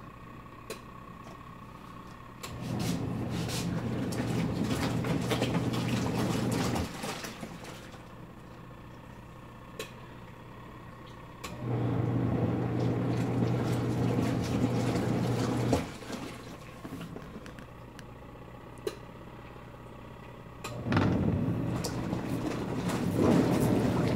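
Small twin tub washing machine's wash motor churning water in the tub. It runs in three bursts of about four seconds, each a steady hum with water sloshing, and pauses between them, in the stop-and-go pattern of a wash cycle.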